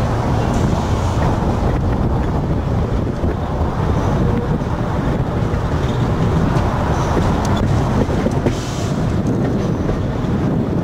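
Vintage wooden Sóller tram running along its track, heard from on board: a steady rumble of wheels on the rails mixed with wind buffeting the microphone.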